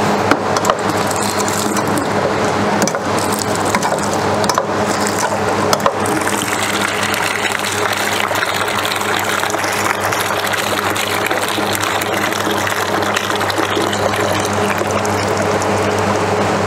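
Soft-serve ice cream machine humming steadily on its wash cycle while the rinse water is drawn off through the dispensing valve and splashes into a plastic jug. Clicks and knocks from the draw handle and jug come mostly in the first few seconds.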